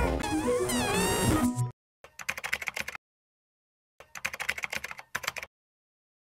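Music with gliding, warbling voice-like tones cuts off abruptly under two seconds in. Then a computer-keyboard typing sound effect plays in two short bursts of rapid key clicks, each about a second long, with silence between them.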